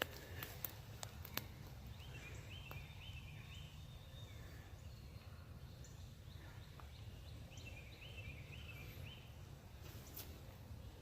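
A songbird sings a phrase of about five quick repeated notes, twice, some five seconds apart, over a steady low outdoor rumble with a few faint clicks near the start.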